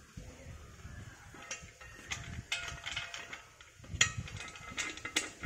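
Metal lid and fittings of a bag filter housing being handled as the lid is fitted and hand-tightened: irregular clinks, clicks and scraping, with the sharpest click about four seconds in.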